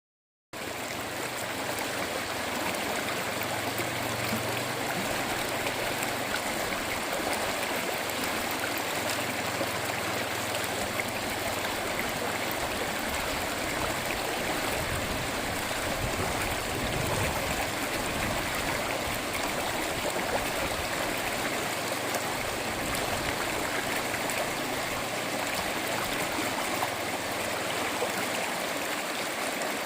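A stream flowing steadily, with a continuous rushing and trickling of running water.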